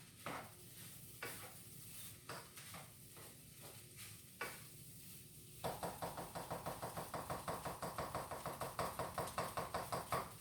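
Kitchen utensil knocking a few times against cookware, then from about five and a half seconds in a fast, even clinking and scraping, about nine strokes a second, as the food is stirred briskly.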